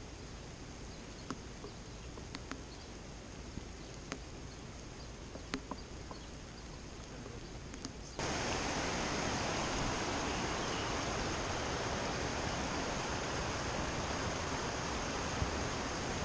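Quiet open-air ambience with a few small clicks and knocks, then, about eight seconds in, an abrupt change to the steady rush of a shallow, rocky stream.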